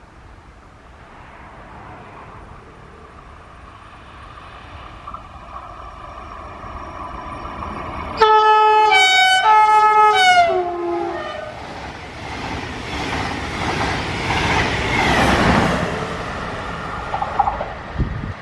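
An ÖBB Railjet train approaches and sounds a long horn blast about 8 seconds in, alternating high and low notes for about three seconds and ending on a falling note. The rush of the train passing at speed follows and fades near the end.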